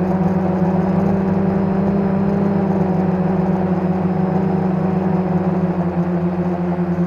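Brushless motors and propellers of a 450-size quadcopter humming steadily in flight, picked up by the camera on the frame; the pitch lifts slightly right at the start as the throttle changes.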